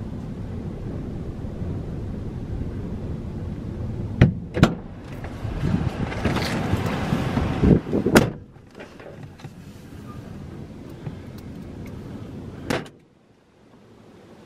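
Strong gusty wind buffeting a parked car, heard from inside the cabin as a low rumble, with a few sharp knocks scattered through it. The rumble swells in the middle, eases after about eight and a half seconds, and drops away sharply near the end.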